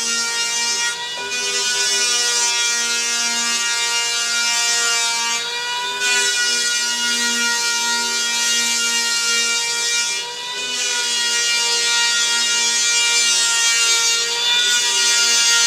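Electric power planer whining steadily at high speed as it planes down a foam surfboard blank, with its attached dust-extraction vacuum running. The whine sags briefly in pitch three times.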